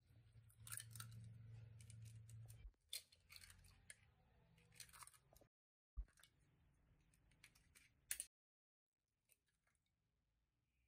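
Eggs being cracked on the rim of a glass bowl: faint sharp taps and crackling of shell, with the clearest taps about three, six and eight seconds in.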